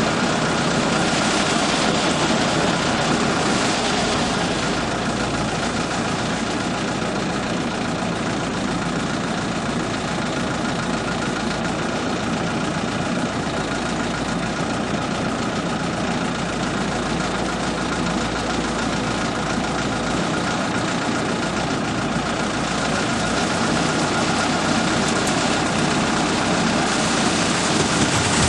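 Engine of a self-loading concrete mixer truck running steadily.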